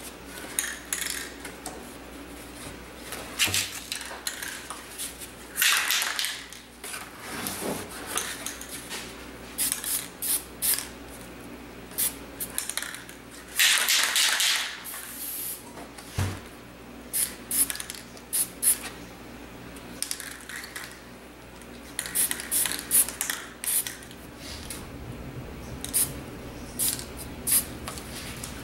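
Aerosol spray-paint cans hissing in many short bursts, with a few longer blasts, about 6 and 14 seconds in. Short knocks and taps fall between the sprays.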